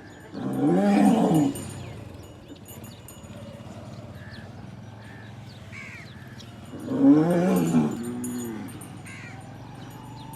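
Dhani cattle, likely a bull, mooing twice: two long, loud calls about six seconds apart, each rising then falling in pitch. Small birds chirp faintly between the calls.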